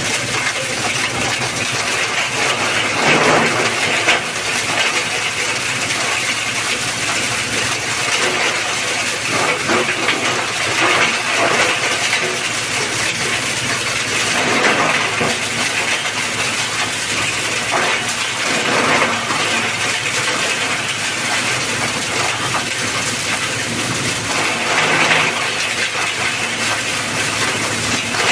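Electric-motor-driven compost shredder running, a steady loud rattling churn with louder surges every few seconds.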